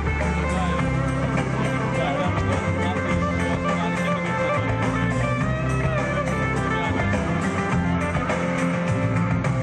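Music led by guitar, in a rock or blues style, at a steady level over a sustained bass line.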